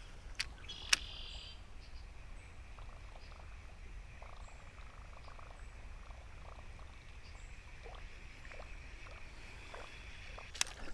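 Quiet creek-side ambience: a steady high-pitched animal chorus, with a short buzz about a second in and a few faint clicks.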